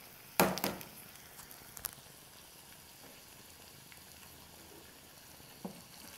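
Potato and beetroot pieces sizzling gently over low heat in a pot, cooking without added water. About half a second in there is a sharp clatter, and a few lighter knocks follow.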